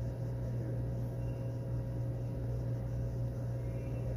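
Steady low hum with a faint, higher steady tone over an even hiss, unchanging throughout: background machinery or ventilation noise in a room.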